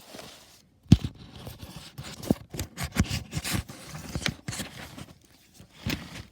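Handling of a plastic novelty gumball machine bank: irregular plastic clicks and scrapes, with a sharp click about a second in.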